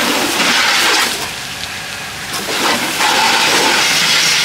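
High-pressure washer jet spraying water onto a car's tyre and wheel arch: a loud, steady hiss and splatter. It drops away for about a second, a little after the start, then comes back at full strength.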